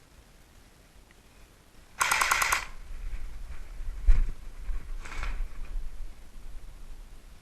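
Airsoft gun firing a short rapid burst of about six shots two seconds in, followed by a low thump and a second, softer burst a few seconds later.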